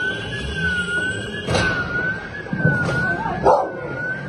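Electronic burglar alarm sounding, a high tone warbling quickly up and down without a break. Three sharp bangs cut through it in the second half, the last the loudest.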